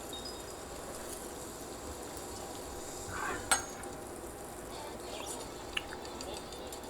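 Food sizzling in a frying pan, with utensils clinking against the pan; one sharp clink about halfway through and a few lighter taps near the end.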